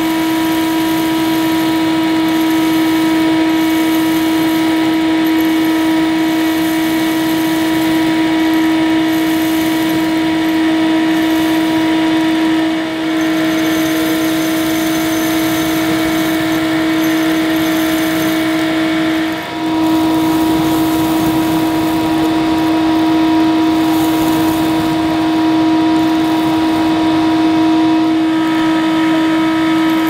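Hoover Hooverette model 2944 vacuum cleaner running steadily, a strong hum with a high whine, as its hose and metal wand pick up dry debris from a carpet. The sound dips briefly twice, a little before halfway and again about two-thirds through.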